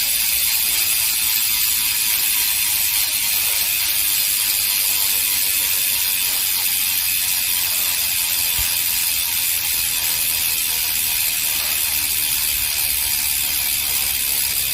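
OXO bicycle freehub freewheeling, its pawls clicking over the ratchet ring so fast that the clicks merge into a steady, high-pitched buzz.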